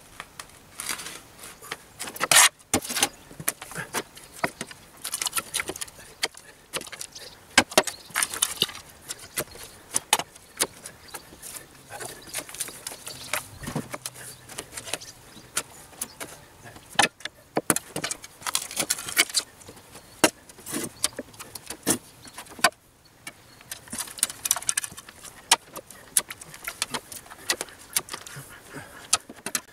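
A metal spade chopping and scraping into turf and gritty soil, stripping the top layer of grass: irregular sharp scrapes and clinks of the blade with short pauses between strokes.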